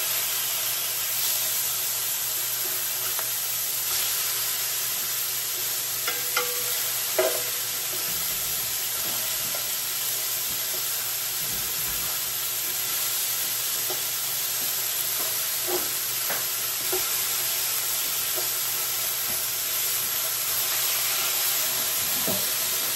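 Hamburger patties sizzling steadily as they fry in a large pot, with a few short scrapes and knocks from the patties being flipped.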